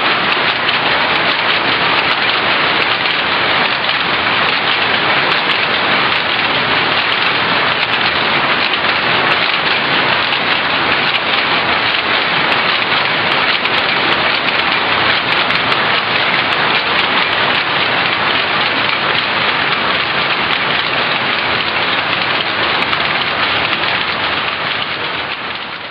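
Dense, steady clatter of many power looms running together in a weaving shed, fading out near the end.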